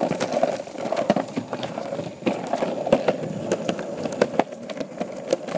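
Handling noise from a phone carried in the hand and jostled against clothing: rubbing and many irregular clicks and knocks.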